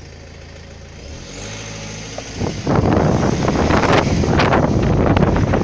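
Car engine running, its pitch rising about a second in as the car pulls away. About two and a half seconds in, loud wind starts buffeting the phone's microphone.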